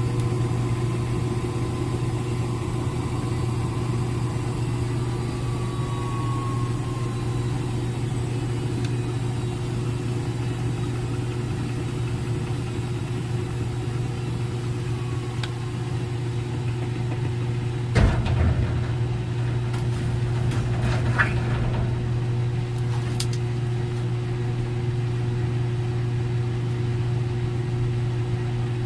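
Front-load washing machine running steadily in its spin cycle, a constant low hum with a steady higher whine. A sharp knock about eighteen seconds in and a few light clicks soon after.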